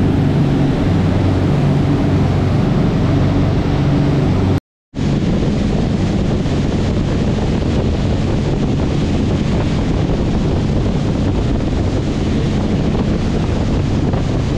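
The twin engines of a Sea Ray 400 Sundancer cruiser drone steadily at cruising speed over the rush of wake water. The sound cuts out briefly about five seconds in. After that, wind buffeting the microphone and spray noise cover most of the engine sound.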